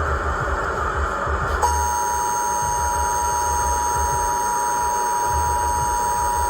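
Emergency Alert System attention signal: a steady two-tone sound that starts suddenly about a second and a half in and holds. Before it comes a stretch of harsh, static-like noise.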